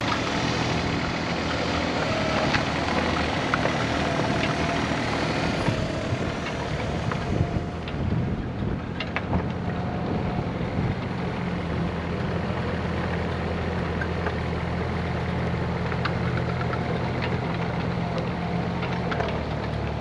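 Terex mini excavator's diesel engine running steadily, with a few sharp knocks from the machine. About seven and a half seconds in the engine note drops, and it then settles to a steady idle.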